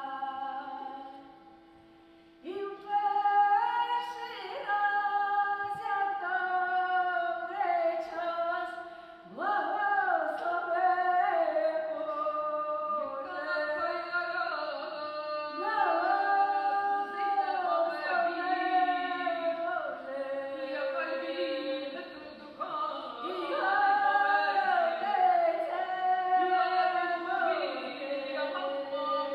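Unaccompanied female singing, a slow melody with long held notes and at times a second held note beneath it. It dies away briefly about two seconds in, then starts again.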